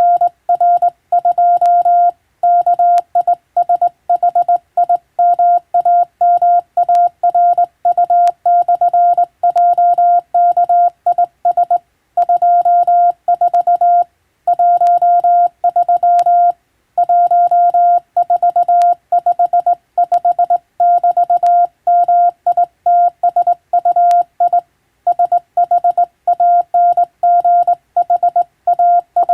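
Morse code (CW) on a single steady beep tone, keyed rapidly on and off as dots and dashes at a fast pace. Short pauses fall between words.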